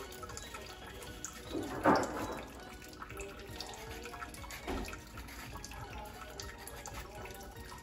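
Quiet food-prep handling sounds: vegetables being handled over a plastic bag, with soft rustles and small knocks and one louder rustle about two seconds in.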